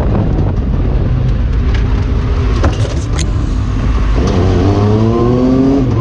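Side-by-side UTV engine running hard over rough dirt track, with a few sharp knocks around the middle; from about four seconds in the engine revs up, its pitch rising steadily.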